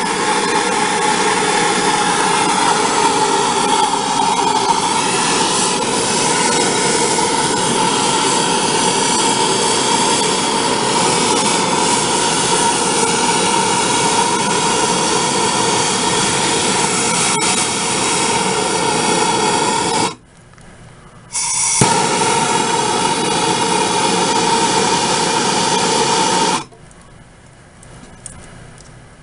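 Brazing torch flame roaring steadily while heating a copper pipe union fitting, with a steady tone in the rush. It drops out briefly about two-thirds through, comes back, and cuts off a few seconds before the end.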